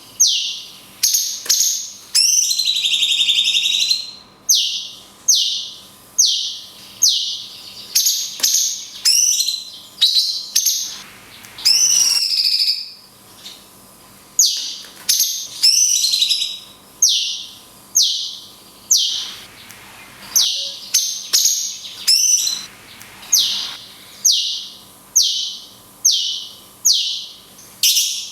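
Cucak cungkok songbird singing: a rapid string of short, sharp, falling whistled notes, about two a second, broken by a few longer warbled phrases.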